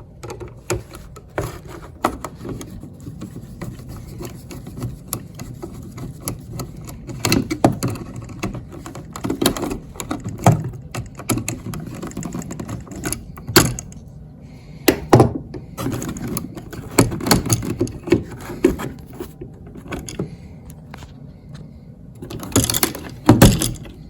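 Irregular clicks, knocks and light rattles of a wall light switch and its wires being handled and worked loose from the electrical box, with a few louder clusters of knocks.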